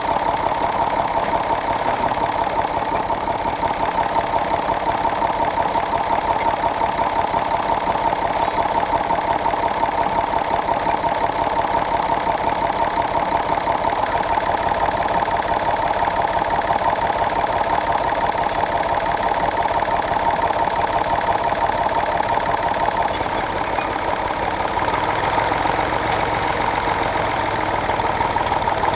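Massey Ferguson 35 tractor engine idling steadily, a vintage tractor ticking over while standing still.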